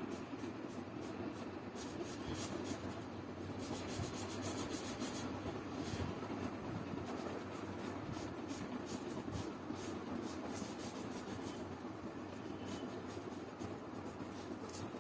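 Felt-tip marker scratching on paper in many short back-and-forth strokes as a shape is coloured in, over a steady low hum.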